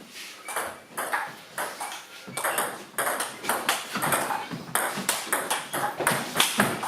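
Table tennis rally: the ball clicking back and forth off bats and table, several hits a second, the exchange getting busier about two seconds in.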